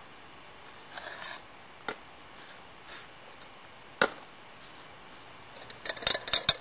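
A few sharp knocks from metal camp cookware being handled, the loudest about four seconds in, then a quick rattle of small clicks near the end.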